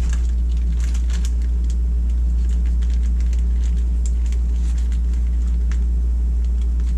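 A steady low hum, with faint scattered clicks and crinkles from a knife cutting through a ham in its plastic wrapping.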